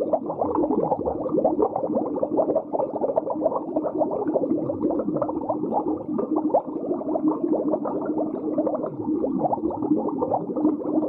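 Underwater ambience sound effect: continuous bubbling and gurgling over a steady low hum, with a few slow falling swoops.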